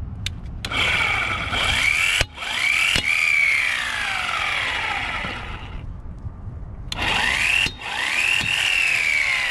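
Mplus 12-volt roadside electric impact wrench running on a car's lug nuts in two runs, the first about five seconds long and the second starting about seven seconds in. In each run the motor's whine rises and then falls in pitch. A few sharp clicks come just before the first run.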